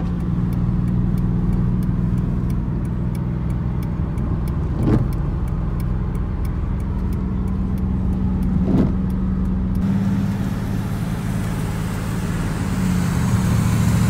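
V8 car engine running steadily while driving, with two brief thumps about five and nine seconds in.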